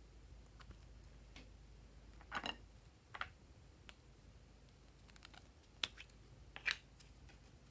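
Sparse light clicks and taps of small plastic bottles and pineapple-shaped toy containers being handled and set down, about ten in all. The loudest come about a third of the way in and near the end.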